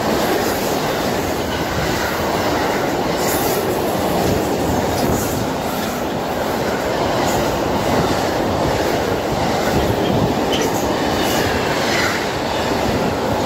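Container freight train passing close at speed: a steady, loud rushing rumble of wagon wheels on the rails, with repeated clicks of wheels over rail joints and a faint brief wheel squeal near the end.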